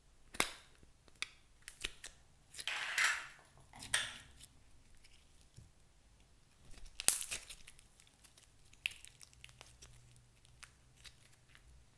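Glossy slime being handled: a sharp click as the plastic container is pulled open near the start, then sticky crackles, pops and squelches as the slime is peeled out, stretched and twisted, with the loudest snap about seven seconds in.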